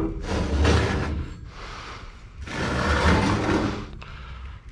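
A heavy vintage chainsaw engine being slid and turned on a rusty steel workbench top: two scraping drags, the first right away and the second about two and a half seconds in, each about a second long.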